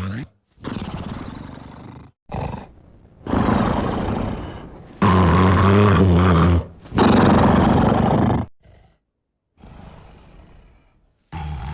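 A big cartoon dog's exaggerated snoring: about half a dozen loud snores, each one to two seconds long with short gaps between, the loudest two in the middle.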